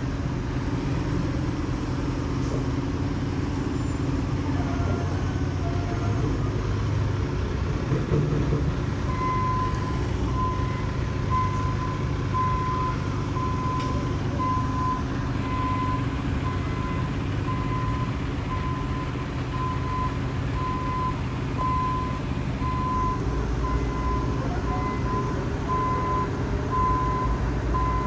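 Heavy construction machinery running with a steady low engine rumble; about nine seconds in a reversing alarm starts, a single-pitched beep repeating just over once a second as a machine backs up.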